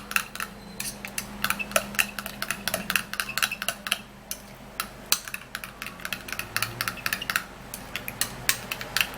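Spoon stirring a thick turmeric and grated-tomato paste in a bowl, clicking and scraping against the bowl several times a second at an uneven pace, with a brief pause about four seconds in.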